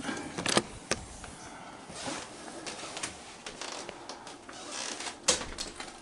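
A person rummaging among household things: low rustling with a few sharp clicks and knocks, two near the start and a louder one about five seconds in.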